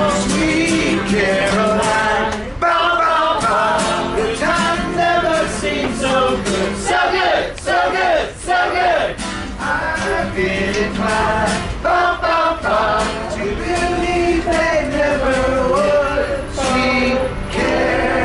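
Live song: singing over acoustic guitar, with several voices singing together.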